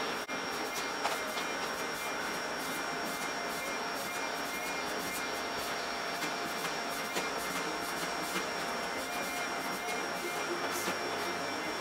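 Upright vacuum cleaner running steadily, a constant whine with a thin high tone, its hose tool being worked over fabric couch cushions, with frequent small clicks.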